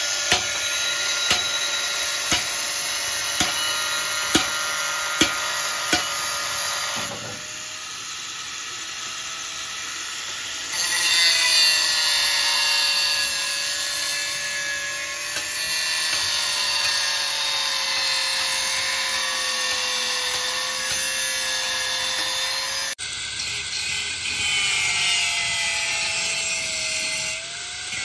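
An angle grinder with a cut-off disc cuts through a painted sheet-metal panel: a steady motor whine whose pitch sags and recovers as the disc bites, over the hiss of the cut. Sharp knocks come about once a second during the first several seconds.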